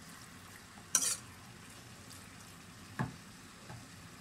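Chicken and diced potatoes frying in a pan with a low, steady sizzle while a spoon stirs them. The spoon clinks sharply against the pan about a second in and knocks against it again about three seconds in.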